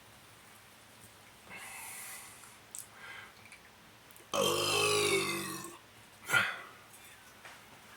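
A person burping: one long, low burp starting a little past halfway, followed by a short sharp vocal sound, with a soft breathy hiss earlier on.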